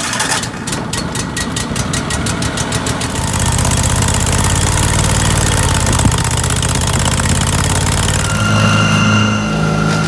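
Wood chipper's engine being cranked by its electric starter in a fast chugging rhythm, catching about three seconds in and then running steadily; near the end its speed rises.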